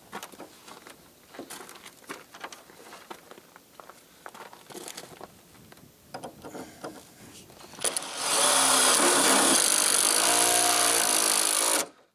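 Cordless drill run hard against a car's trunk lid where a rear wing is being mounted. It runs for about four seconds in the second half and stops abruptly. Before it come light clicks and handling knocks.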